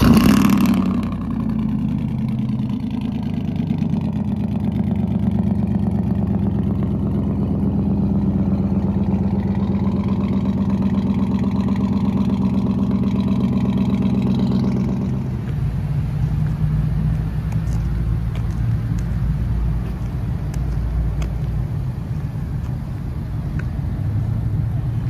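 Chevrolet Tahoe engine on a cold start, flaring loudly just after it catches and then settling into a steady fast idle. About fifteen seconds in, the sound changes to a lower, deeper engine idle.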